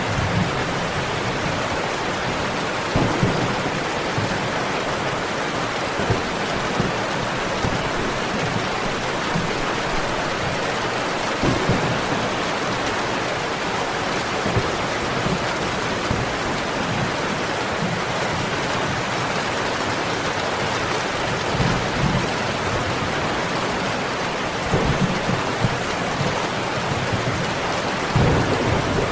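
Steady heavy rain, with brief low rumbles of thunder every few seconds.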